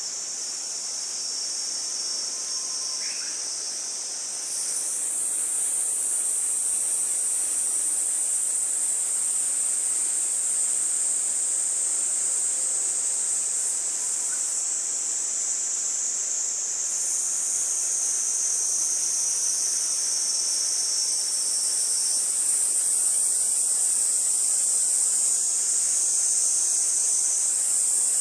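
Chorus of insects: a steady, high-pitched buzzing trill. About four seconds in, a lower layer gives way to a higher one, and the layers shift again later.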